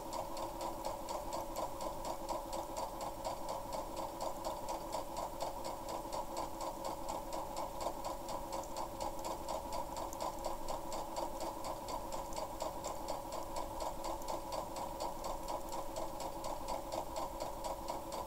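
Compact electric sewing machine running continuously, stitching a seam at a fast, even rhythm without a pause.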